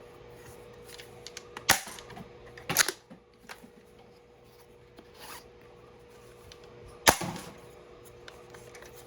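Hard plastic clacks of a 3D-printed spring-plunger Nerf shell pistol being loaded and primed, two loud ones about two and three seconds in. A sharp pop about seven seconds in is the blaster firing a Mega XL dart.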